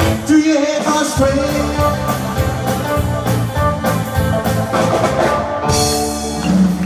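Live rock and roll band playing loudly: electric guitars over bass and a drum kit.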